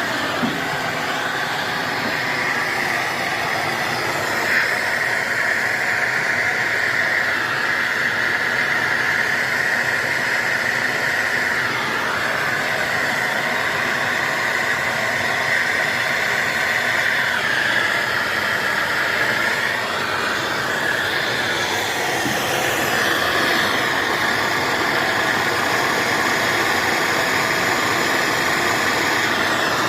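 Handheld gas torch burning with a steady hiss, heating copper pipe joints for soldering.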